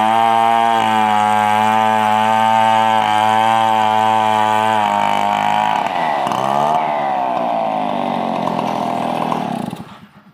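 Engine-driven wood saw running steadily at high speed. After about five seconds its pitch wavers up and down, and near the end it dies away.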